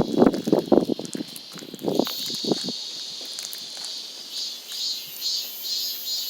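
Slime being squeezed and worked by hand, with wet clicks and pops for the first couple of seconds. Cicadas sing throughout, their steady buzz turning into a rhythmic pulsing about two times a second near the end.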